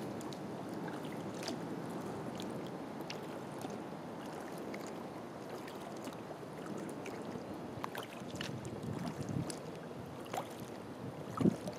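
Water lapping and trickling against a kayak's hull while it is paddled, with small drips and splashes from the paddle throughout and a louder thump near the end.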